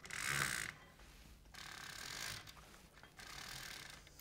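Chain control of a Perfect Fit Vision roller blind being pulled to wind the blind: three separate pulls of the beaded chain running through the control mechanism, each under a second, the first the loudest.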